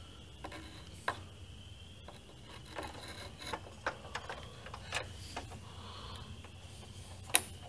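Small clicks and scraping from a screwdriver turning in the Torx mounting screws of a circuit card inside a plasma cutter's metal case. The clicks are scattered, and a sharper knock comes near the end.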